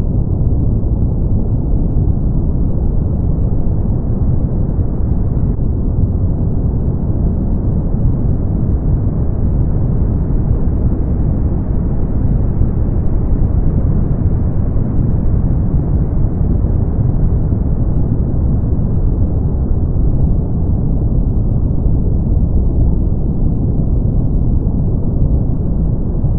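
Steady synthetic brown noise: an even, deep hiss with most of its weight in the low end and little above the upper midrange.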